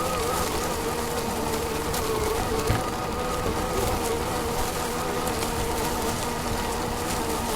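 Steady buzzing whine from the RC rock crawler's electric drive and electronics, picked up by its onboard camera, with a slightly wavering pitch over a constant hiss.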